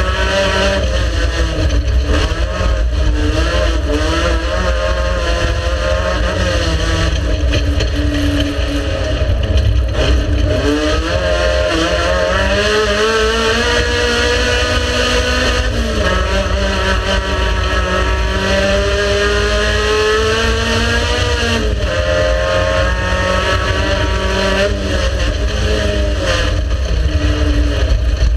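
Race car engine running hard under load, its pitch climbing and then dropping sharply several times as it shifts gears and lifts off.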